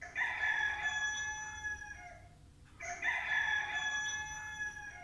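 Rooster crowing twice, each crow about two seconds long, the second starting just under three seconds in.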